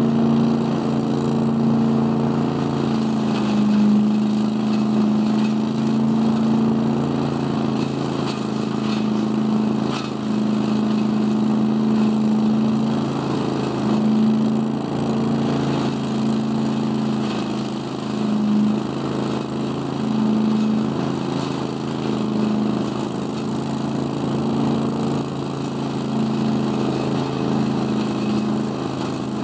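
Scag Giant Vac truck-loader leaf vacuum running steadily, its 18 hp Briggs & Stratton Vanguard V-twin engine and fan sucking leaves through the 10-inch hose with a rush of air. The engine note wavers slightly now and then.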